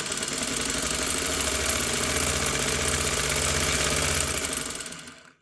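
Singer 301A slant-needle sewing machine running unthreaded, motor and needle mechanism going at speed, then slowing and stopping near the end.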